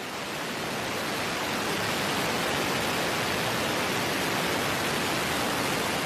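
JZYJ (Jiuzhou Yunjian) methane–liquid-oxygen rocket engine in a horizontal static test firing: a steady, dense roar that swells slightly over the first second and then holds. It is a static fire of the engine recovered from the sea after a suborbital hop.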